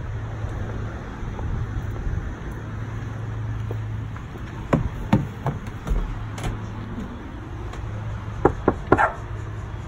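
Footsteps on pavement and steps over a steady low rumble, then three quick knocks on a front door near the end.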